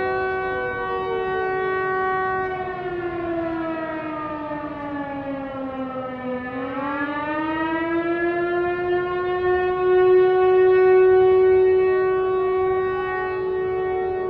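Air-raid style siren wailing on a steady chord, falling in pitch for a few seconds, bottoming out about six seconds in, then climbing back and holding its wail.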